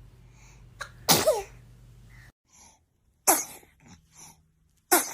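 A baby sneezing three times in short, sudden sneezes: about a second in, a little past three seconds, and near the end.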